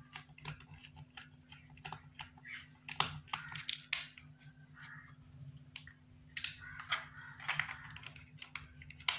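Irregular small clicks and taps of a small screwdriver and hands working a screw into a plastic solar rechargeable torch casing, over a faint low steady hum.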